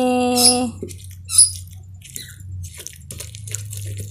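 A voice holds a sung note for under a second at the start. Then a stone pestle grinds and crushes chilies, tomato and shallots in a stone mortar (cobek): wet, irregular squishing and gritty crunching.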